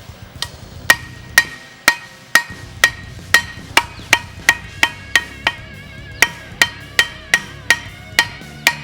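A hand hammer striking steel on an anvil at about two blows a second, each blow ringing sharply, as a spearhead's tip is forged to a point. Quiet background music with a guitar runs underneath.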